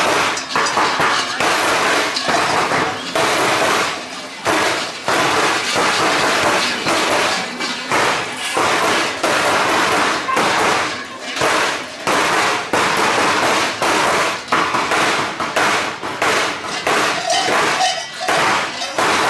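Many large Perchten bells clanging continuously, a dense, loud metallic clatter with only brief dips.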